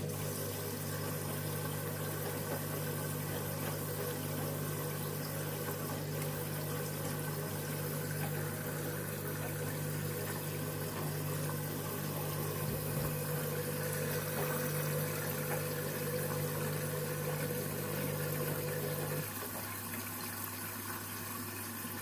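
Candy washing machine running with a steady hum and the wash of water, while its KG detector weighs the load. About three seconds before the end, part of the hum cuts off and a lower hum continues.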